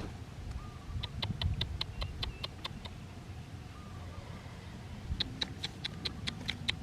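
Small bird chirping quickly, about five short sharp calls a second, in two runs: one about a second in and one near the end.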